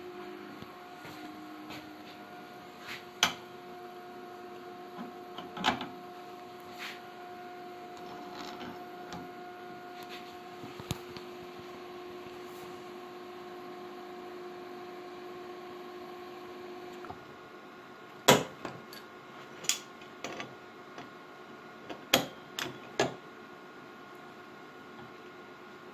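Metal grinder parts knocked and clinked while being handled and fitted: a few sharp knocks, two early and a cluster near the end, over a steady hum whose pitch changes about two-thirds of the way through.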